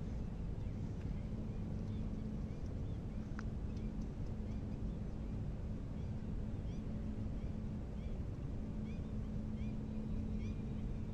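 Steady low outdoor rumble with a constant low hum. Short high bird chirps repeat about once a second over it, and there is a single sharp click about three seconds in.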